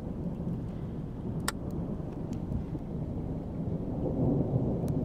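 Low, continuous rumble of distant thunder from a tornadic storm, growing a little louder near the end. A single sharp click comes about a second and a half in.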